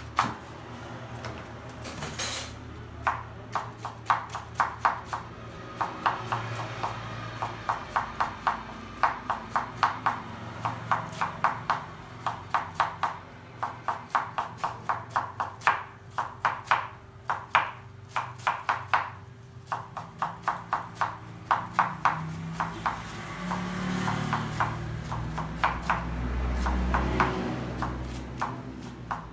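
Kitchen knife shredding cabbage on a wooden cutting board: quick, even chops, several a second, in runs broken by short pauses.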